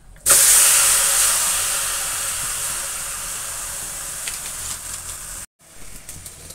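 Loud sizzling hiss as wet, yogurt-marinated mutton hits a hot, dry aluminium kadai with no oil in it. It bursts in about a quarter second in, slowly dies down, and cuts off abruptly near the end.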